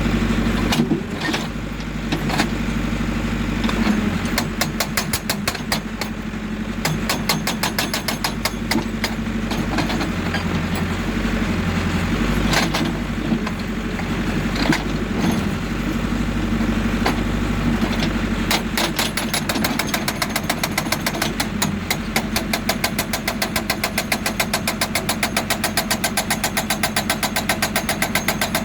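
JCB 3D backhoe loader's hydraulic breaker hammering rock in rapid, even blows over the steady running of the machine's diesel engine. The hammering comes in broken runs at first and goes steady in the second half.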